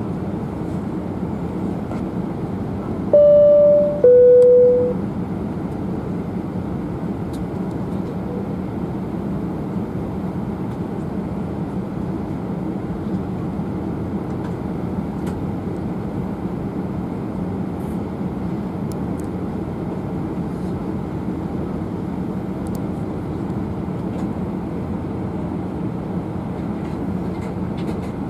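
Airbus A319 cabin chime: two clear tones, high then lower, about three seconds in, over steady cabin noise with a low hum.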